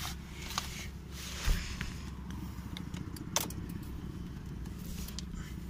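Ignition key being inserted and turned in a Volkswagen Polo's steering column inside the cabin: a few sharp clicks and one louder thump about a second and a half in, over a steady low hum.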